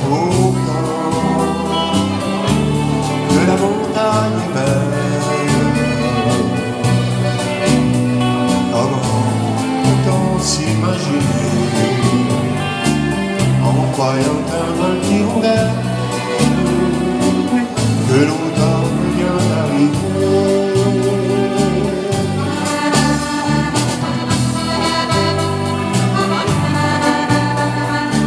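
Live dance-band music with a steady beat: electric guitar over keyboard backing, with a sung or played melody on top.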